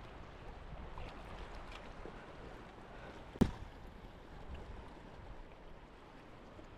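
Steady rush of flowing creek water, with a single sharp click about three and a half seconds in.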